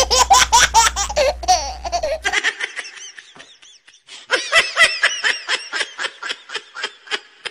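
High-pitched laughter in quick 'ha-ha' pulses, in two bouts with a short lull about three and a half seconds in; the second bout runs at about four laughs a second.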